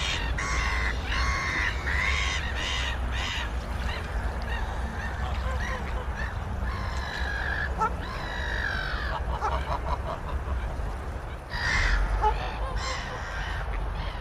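Waterfowl honking: a quick run of short nasal honks, then longer drawn-out calls around the middle, and a few more honks near the end, over a steady low rumble.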